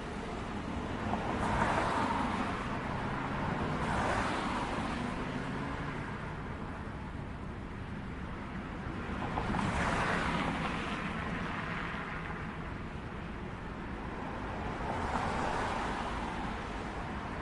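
City street traffic: vehicles passing one after another, about four times, each swelling and fading with tyre and engine noise over a steady background hum.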